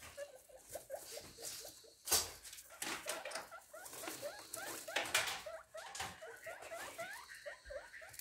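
Guinea pigs squeaking in a steady run of short rising chirps, about five or six a second. A few sharp knocks or rustles cut in, the loudest about two seconds in.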